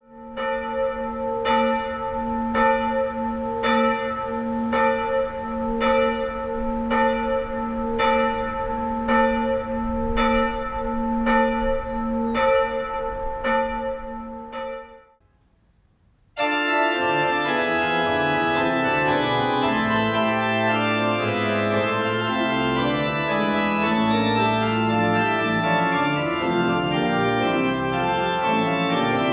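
A church bell ringing, struck about once a second with a steady hum between strikes, stops about 15 seconds in. After a short silence, pipe organ music begins: full sustained chords.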